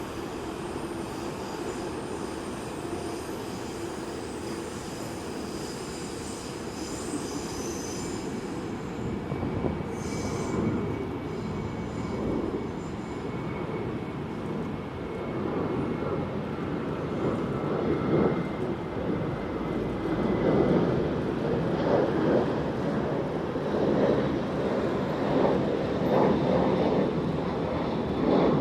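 Jet airliner engine noise: a steady rushing rumble with a faint high whine in the first part, growing louder and more uneven over the second half.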